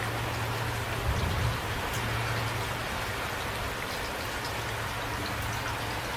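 Steady light rain, with individual drops ticking. There is a brief low rumble about a second in.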